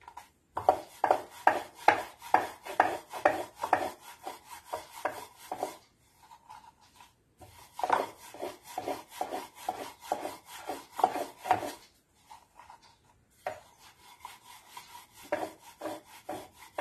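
Wooden rolling pin rolling momo dough out thin on a wooden board, in quick back-and-forth strokes. The strokes come in three runs, with short pauses about six and twelve seconds in.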